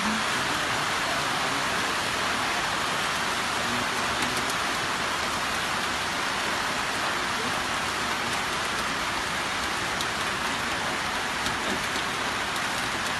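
Heavy monsoon rain falling steadily as an even, unbroken hiss, with faint patter of drops.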